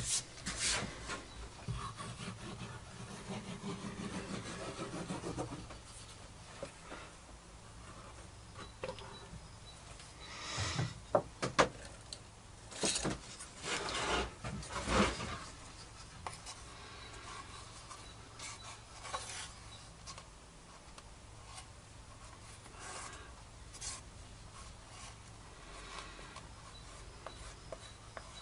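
Hands rubbing and handling wooden boards on a workbench, with a cluster of sharp knocks of wood about halfway through. Quieter scraping follows, as wood glue is spread over a board with a thin wooden stick.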